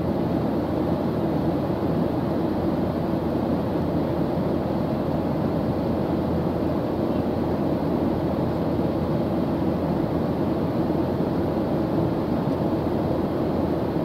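Jet airliner cabin noise in cruise: a steady, even rush of engine and airflow noise, strongest low down, with no change in pitch or level.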